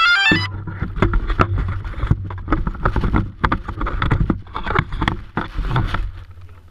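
DJI Phantom quadcopter down in grass with its motors running as a steady low hum, under a string of clicks and rustles. A quick falling run of electronic beeps sounds right at the start, and the motor sound cuts out about six seconds in.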